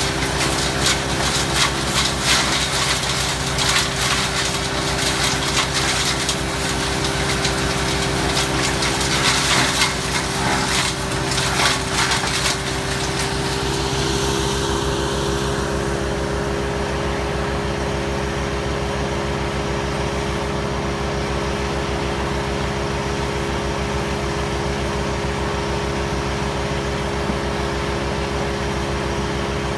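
Wood chipper's engine running steadily while branches are fed through, the cutters crunching and snapping the wood for roughly the first half. The crunching stops about halfway through, and the chipper runs on empty with only the steady engine sound.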